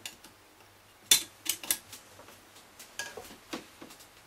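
Irregular sharp clicks and taps of a small knife against hard plastic as the pegs inside a Bose SoundDock are trimmed, the loudest about a second in.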